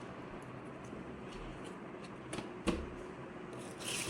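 Light handling of cardboard firecracker boxes: faint rustling with a few soft taps and one sharper click a little before three seconds in.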